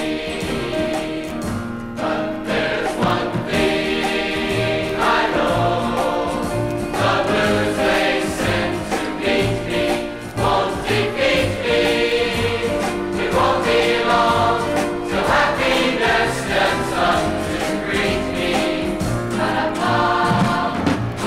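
A large church choir singing in harmony with instrumental accompaniment and a steady bass line.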